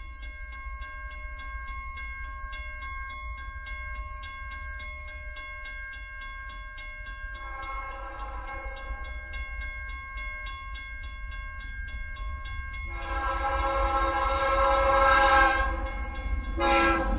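Train horn sounding over a steady low rumble: a long chord that comes in fuller about seven seconds in and grows louder, then a short blast near the end.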